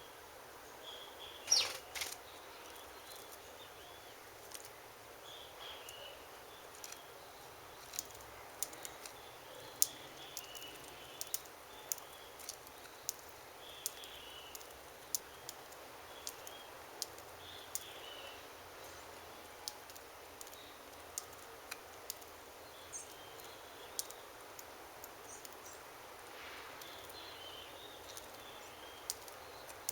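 Small wild birds chirping at a feeding spot, short twittering calls every couple of seconds, with scattered sharp clicks throughout and one louder falling call about a second and a half in.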